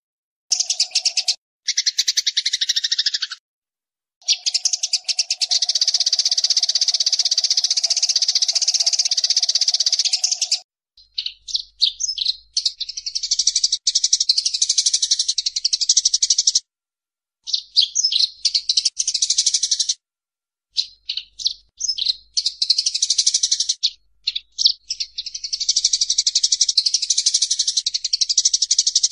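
Eurasian tree sparrows chattering in a fight: rapid, harsh chirping in dense runs, one long unbroken run in the first third, then shorter bursts that start and stop abruptly.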